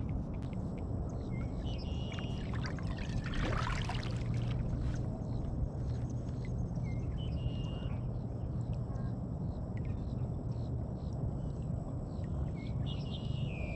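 Water trickling and lapping around a kayak over a steady low rumble, with a louder splashing rush about three to four seconds in.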